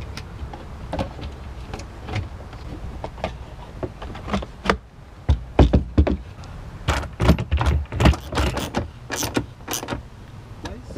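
Hard plastic and rubber parts being handled and pushed into place in a personal watercraft's engine compartment: irregular clicks, knocks and rattles, thickest from about five to ten seconds in, over a steady low hum.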